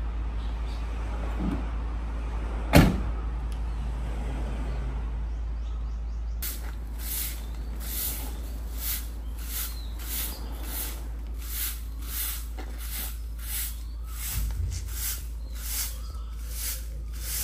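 A van door slams shut about three seconds in, over the steady low hum of the Isuzu van's engine idling. From about six seconds on, a straw broom sweeps leaves across the asphalt in regular scratchy strokes, about one and a half a second.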